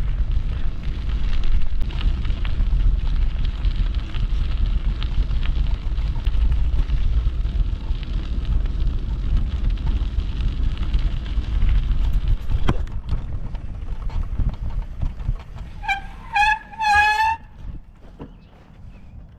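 Wind buffeting the microphone while walking on a gravel path, with footsteps crunching underfoot. About sixteen seconds in, the rumble dies down and three short honking calls are heard.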